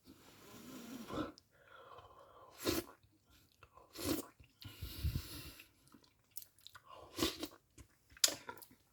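A person eating a spoonful of slow-cooked bean, vegetable and rice stew, with a run of slurps and wet chewing noises broken by short pauses.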